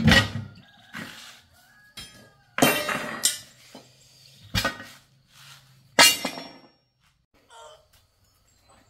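Metal tools clanking and knocking in tractor tyre repair work: a handful of sharp, irregular strikes, the loudest right at the start and about six seconds in.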